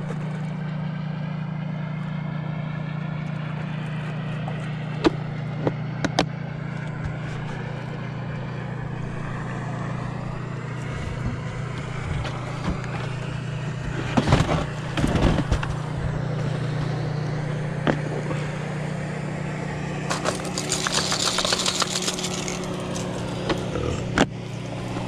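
Boat outboard motor running steadily as a constant low hum. Scattered knocks and clatter come about a third of the way in and again past the middle.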